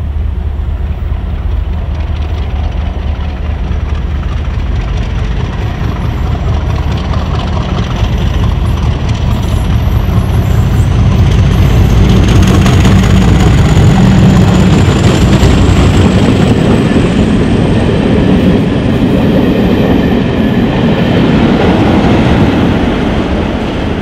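Class 50 diesel-electric locomotive 50008, with its English Electric 16-cylinder engine, departing under power and approaching, with a steady deep engine note and a faint high whine that rises slowly in pitch. It grows louder towards the middle as the locomotive draws near, then eases a little.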